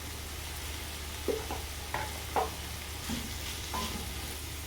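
Chicken and sliced bell peppers sizzling in oil in a pan as they are stirred, with a few short scrapes of the utensil against the pan.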